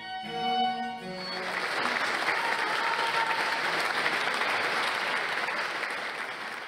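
Violins play the last notes of a piece. About a second in, audience applause takes over: steady clapping that starts to fade near the end.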